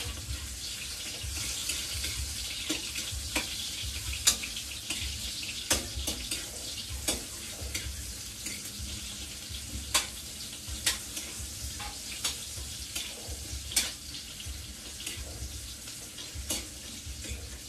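Garlic and onion sizzling in oil in a wok, stirred with a spoon: a steady sizzle broken by irregular sharp clicks and scrapes of the spoon against the pan.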